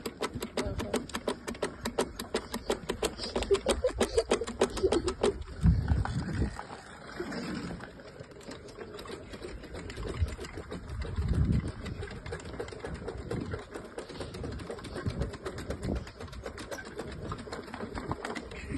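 Rapid, even clicking, about six clicks a second, for the first five seconds or so, then low rumbles on the phone's microphone about six and eleven seconds in.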